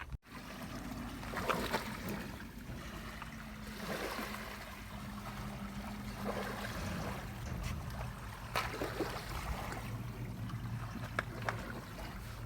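Water trickling and gurgling, with a few short splashy sweeps and a low steady hum underneath for the first several seconds.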